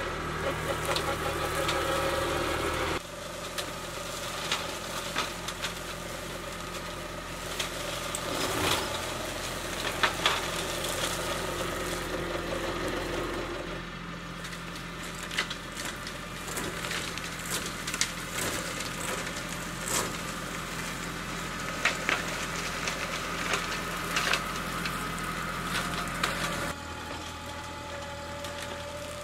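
Kubota B2261 compact tractor's three-cylinder diesel running steadily under load, driving a front PTO flail mower that mulches cleared ground. Frequent sharp cracks and knocks come from the flails striking sticks, roots and debris.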